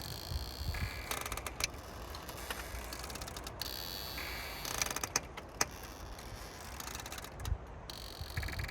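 Logs and branches of a large stick structure creaking and groaning as the wind sways it: drawn-out high creaks that come and go, over a low rumble of wind.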